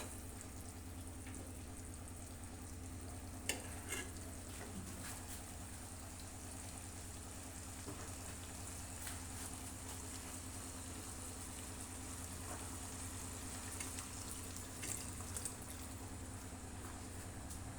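Chicken kababs sizzling steadily as they fry in oil in a pan, with a few sharp clicks, about three and a half seconds in and again near the end.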